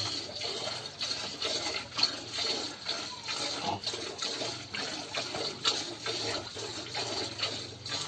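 Milk squirting from a cow's teats into a plastic bucket during hand-milking, a quick, even rhythm of spurts, about two or three a second, splashing into the milk already in the bucket.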